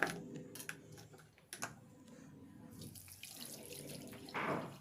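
Water running from a tap into a jug, with a few light knocks in the first two seconds and a louder burst shortly before the end.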